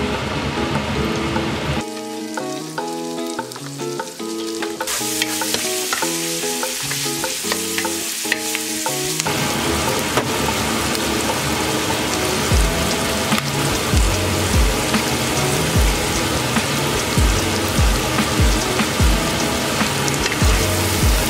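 Diced onion and bell peppers frying in oil in a non-stick pan, a steady sizzle that grows louder a few seconds in.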